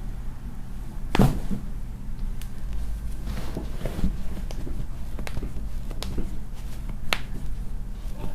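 Joints cracking under chiropractic adjustments: a sharp pop about a second in, then several fainter clicks spread over the following seconds, over a low steady hum.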